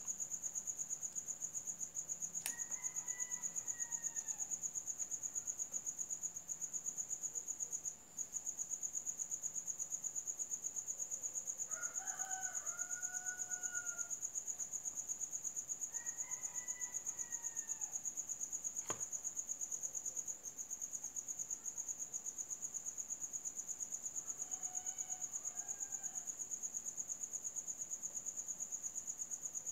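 Crickets trilling steadily in a high, fast-pulsing chorus, with a rooster crowing four times in the background. Two sharp clicks stand out, one early and one past the middle.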